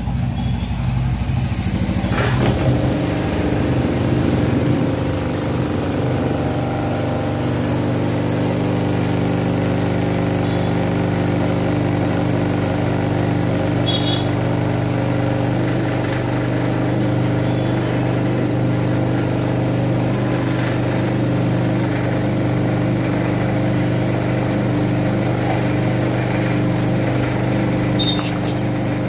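Sewing machine running steadily at speed, a continuous mechanical hum that settles in about two seconds in, with a few light clicks.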